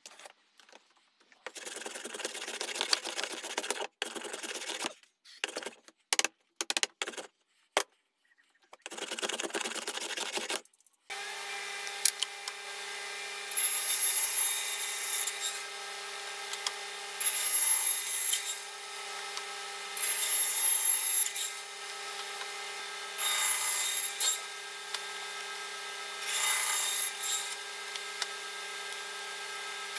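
Short stretches of rubbing and scraping on wood, broken by abrupt cuts. Then a bandsaw runs with a steady hum and crosscuts English elm five times, each pass a louder rasping stretch about every three seconds.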